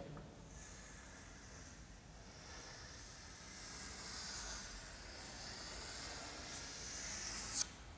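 Chalk drawn in long strokes across a chalkboard: a faint, high scratchy hiss that swells and fades with each stroke, with a sharp click near the end.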